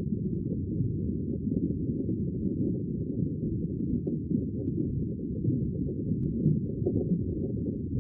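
Steady, muffled low rumble of sea water, with no separate wave breaks standing out.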